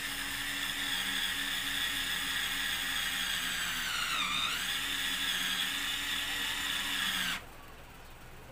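Greenfield cordless handheld screwdriver's small electric motor whining steadily as it turns a screw in a steel door frame. About four seconds in the pitch dips briefly as the motor slows under load, then recovers, and the motor stops shortly before the end.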